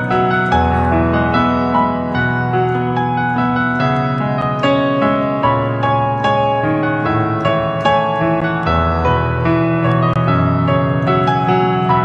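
Solo piano playing an instrumental passage with no singing: a melody of many notes over low bass notes that change every second or two.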